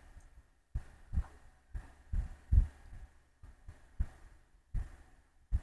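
Marker drawing strokes on a whiteboard, heard as faint, irregular dull thumps about twice a second.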